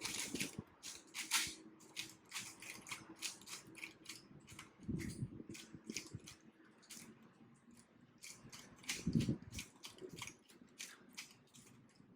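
A 3x3 Rubik's cube being turned rapidly by hand during a speed-solve: a fast, irregular stream of plastic clicks and clacks as the layers snap round, with a couple of low muffled sounds about five and nine seconds in.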